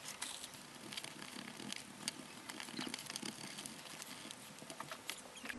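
Stiff paintbrush dry-brushing across a miniature's slate base: faint, irregular scratchy clicks and crackles.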